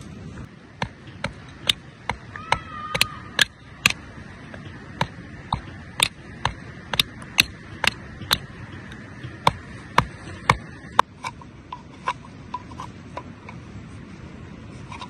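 A series of sharp knocks, about two a second, evenly spaced, going on for about ten seconds, then fainter ticks near the end.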